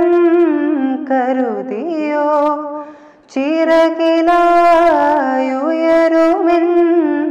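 A young man singing a Malayalam film song, holding long notes that bend and slide in pitch, with a short break about three seconds in.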